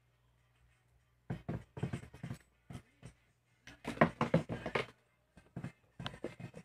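Handling noise as a router's charger and its cable are unwound and moved about: a run of sharp knocks and clicks, thickest around the middle, with a few more near the end.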